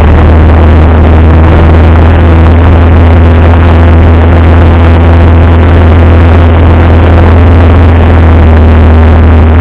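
Single-engine light aircraft's piston engine and propeller running steadily, heard loud from inside the cockpit as a constant deep drone with no change in pitch.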